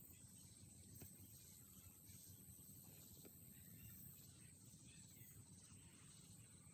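Near silence: faint night-time outdoor ambience with a steady high-pitched insect chirr, typical of crickets.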